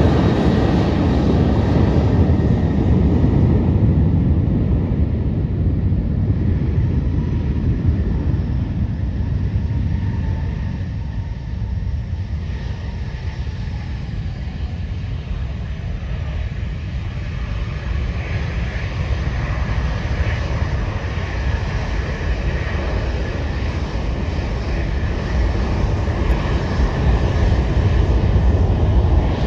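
Jet engines of a Southwest Boeing 737 taxiing, a steady rumble with a faint whine. It eases off around the middle and grows louder again near the end as the jet comes closer.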